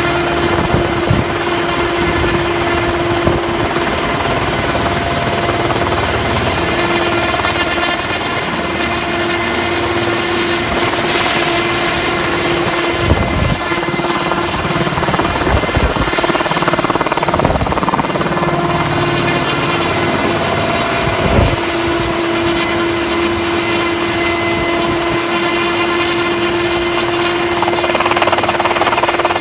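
Ultrasport 496 ultralight helicopter flying overhead, its engine and rotors running steadily, with a constant hum and a thin high whine. A few low thumps come through partway in.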